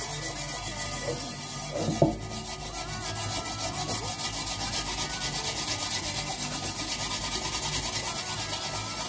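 Steel-wool pad scrubbing the inside of a black metal pan in rapid, even back-and-forth strokes, about four or five a second.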